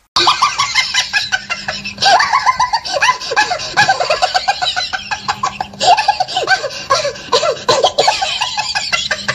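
People laughing hard in rapid, repeated ha-ha bursts that keep going with only brief pauses.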